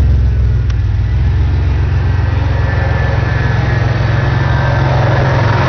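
Car engine idling steadily with the air conditioning on max and the AC compressor clutch engaged. A single light click comes just under a second in.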